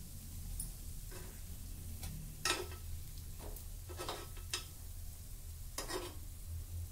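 Steel spoon clinking and knocking against a non-stick appe pan as sweet appams are lifted out of its hollows, about six sharp clicks, the loudest about two and a half seconds in, over a steady low hum.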